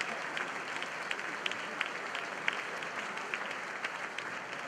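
Audience applauding: many hands clapping steadily, with single sharp claps standing out.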